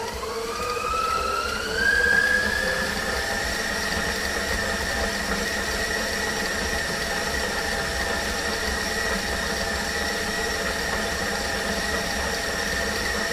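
Electric mixer creaming cake batter. Its motor whine rises in pitch as it speeds up over the first couple of seconds, then runs steadily at high speed.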